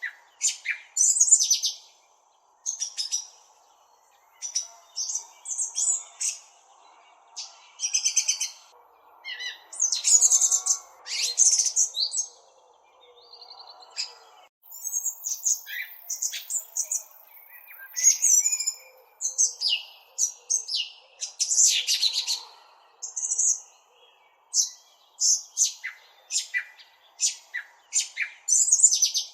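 A small bird chirping close up: quick high chirps and short twittering runs in bursts of about a second, separated by brief pauses.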